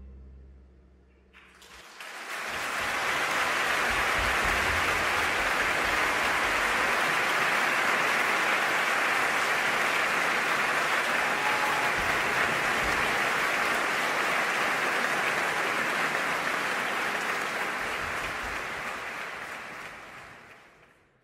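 Audience applause: a dense, steady clapping that starts suddenly just after the last note of orchestral music dies away, then fades out near the end.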